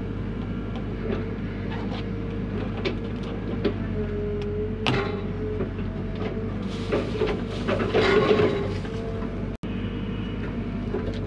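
Hyundai HX85A mini excavator's diesel engine running steadily under load, with scattered clanks and knocks of the bucket working in rocky soil. A louder stretch of scraping and rattling stone comes about seven to nine seconds in.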